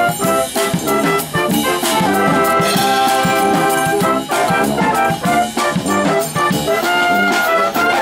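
Military brass band playing live: tubas and other brass carry the tune over a drum kit's beat.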